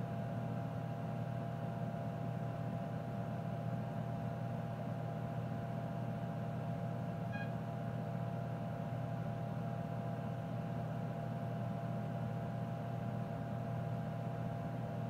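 Steady electrical hum and fan noise from a Tektronix 4054A computer running. There is a short faint beep about seven seconds in.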